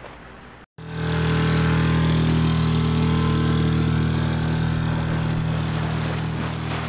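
A sailing yacht's inboard engine running at steady revs under way: an even, low engine drone. It starts suddenly just under a second in, after a faint background.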